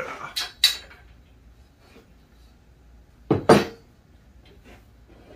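Extruded aluminum router sled frame clinking and knocking as it is lifted and flipped over. A few light metallic clinks come in the first second, then a louder double clank about three and a half seconds in.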